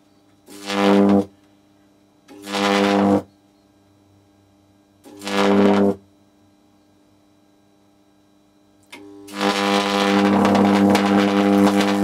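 Two parallel-wired microwave oven transformers switched on in bursts, driving high voltage through a fluorescent tube: a loud, harsh electrical buzz with a crackling hiss over it. There are three short bursts of about a second or less, then a longer one from about nine seconds in.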